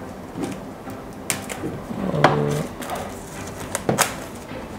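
Clear plastic shrink-wrap being peeled and pulled off a cardboard product box: crinkling with a few sharp crackles, the loudest about a second in and again near the end.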